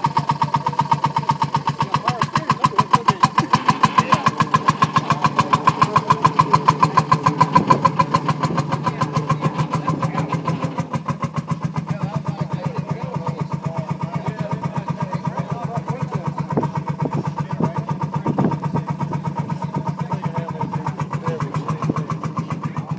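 Vintage kerosene-burning farm tractor engine running with a steady, even firing beat, a little quieter after about ten seconds.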